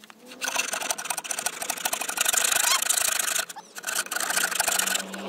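Bare hacksaw blade worked by hand in short, rapid strokes, sawing through steel nails in the joint between timber boards. The sawing pauses briefly about three and a half seconds in, then starts again.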